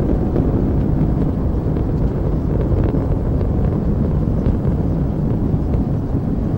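Steady low roar of Space Shuttle Discovery's rocket exhaust during ascent, from the solid rocket boosters and three main engines firing together.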